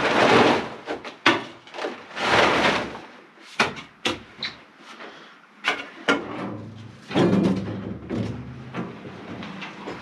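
Shovel scraping into sand and broken brick and tipping it, in a few long scrapes, with sharp knocks and clatter of rubble and tools in between.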